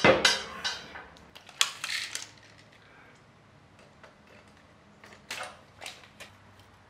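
Metal clunks and clicks as an electric motor is handled and set against a log splitter's steel pump mount: a loud knock at the start, a few lighter clicks in the first two seconds, then two more clicks later on.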